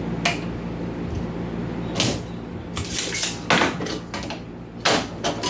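Small hard objects and tools being handled on a workbench: a few sharp clicks and clatters, over a steady low hum.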